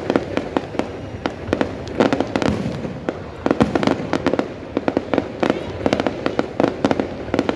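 Fireworks display going off in a rapid, irregular barrage of sharp bangs and pops, several a second, over a steady background crackle and rumble.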